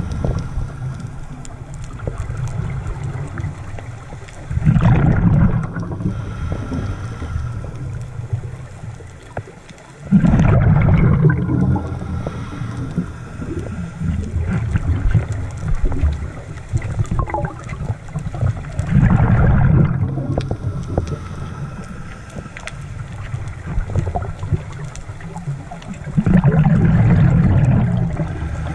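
Scuba diver's exhaled bubbles rushing from the regulator in a low rumbling gurgle four times, a few seconds apart, with steady muffled water noise between, heard underwater through the camera housing.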